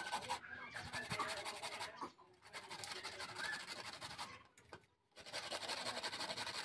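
Carrots being grated by hand on a metal box grater: a continuous rasping of quick back-and-forth strokes, with brief pauses about half a second in, around two seconds in and just before five seconds.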